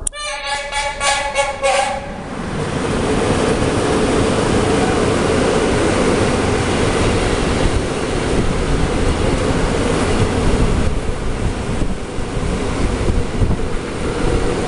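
Electric locomotive's horn sounding one pulsing blast of about six beats over the first two seconds. Then the loud, steady rolling noise of a freight train of car-carrier wagons passing close by on the rails.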